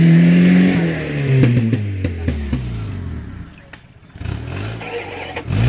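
Dodge truck's engine revving while stuck in deep mud, its pitch sliding down as it eases off, with a few knocks. The sound drops away briefly about four seconds in, then engine noise picks up again near the end.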